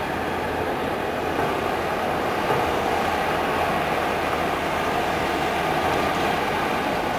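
Amphibious excavator's diesel engine running steadily under working load while the arm swings and digs, a continuous mechanical drone.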